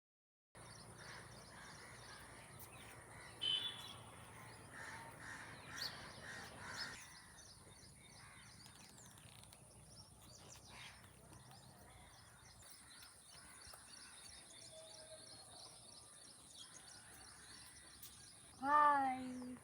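Birds chirping and calling, many short high chirps over a steady high hiss. Near the end comes one louder, longer call that swoops in pitch.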